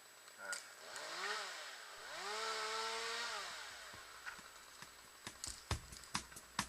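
Two-stroke chainsaw revving up and back down twice, faint, the second rev held for about a second and a half. Near the end come a series of short sharp clicks.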